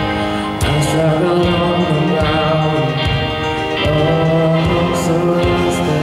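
Amateur ensemble playing electronic keyboards and tablet instruments in held chords, with a boy singing a pop melody into a microphone.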